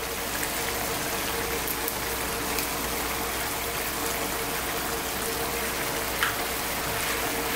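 Tomato sauce simmering in a frying pan, a steady bubbling hiss with a few faint ticks.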